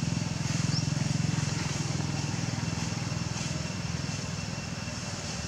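A motor engine running steadily, a low pulsing rumble that eases off slightly about two seconds in.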